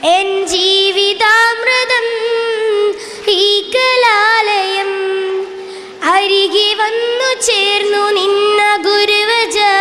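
A girl singing a Malayalam song solo into a microphone, holding long notes with bends and ornaments in the melody, and pausing briefly for breath about three and six seconds in.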